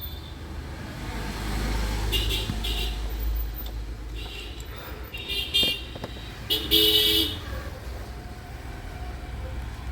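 Road traffic with vehicle horns tooting in three short spells, the last the loudest, over a steady low traffic rumble.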